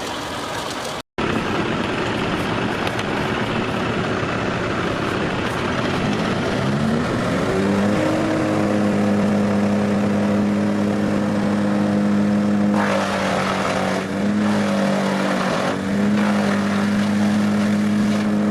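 Large wood chipper at work: a noisy mechanical grinding over its diesel engine. About seven seconds in, the engine rises in pitch and settles into a steady drone, with the sound cut off briefly about a second in.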